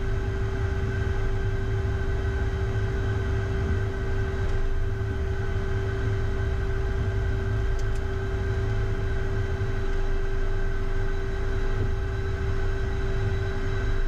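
Premier I business jet's single remaining Williams FJ44 turbofan running at taxi power, heard in the cockpit as a steady low rumble with a constant hum, the other engine shut down for single-engine taxi.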